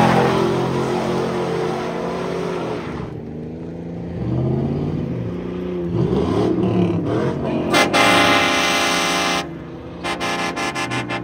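Car engines running and revving, their pitch rising and falling. Then a loud horn blast of about a second and a half, followed by a fast run of short pulsing horn toots.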